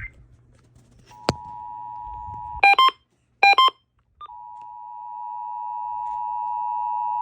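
Emergency Alert System attention signal: a steady two-tone alert tone, broken about two and a half seconds in by two short clusters of beeping data tones, then sounding steadily again from about four seconds in. A sharp click comes just after the first tone starts.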